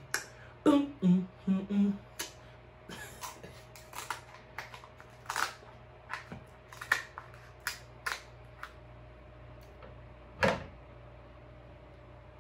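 Sharp clicks and cracks of cooked king crab leg shell being snipped with kitchen shears and broken apart by hand, with one loud crack about ten and a half seconds in. A few short hums of enjoyment come about a second in.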